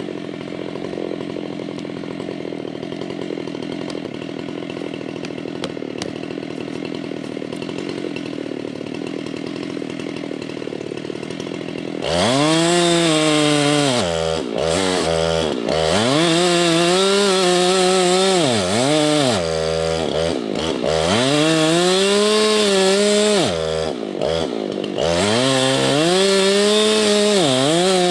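Husqvarna 390XP two-stroke chainsaw with a 37-inch bar, running steadily at low revs. About twelve seconds in it goes to full throttle, and its high engine note sags and recovers again and again as the long bar is loaded in the cut through the stump.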